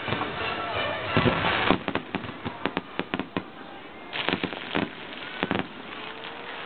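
Aerial fireworks bursting: a run of sharp bangs and crackles, densest about a second in, coming in clusters and then thinning out after about five and a half seconds.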